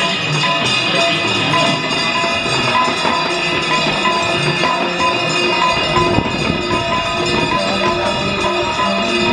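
Music with jingling, tambourine-like percussion and a repeating pattern of short notes over a steady held tone.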